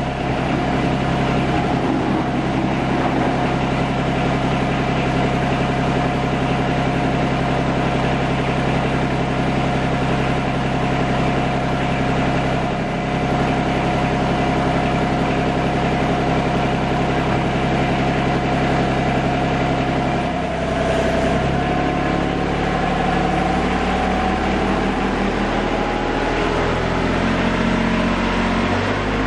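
Tractor engine idling steadily; about 20 seconds in its note shifts and then slowly rises.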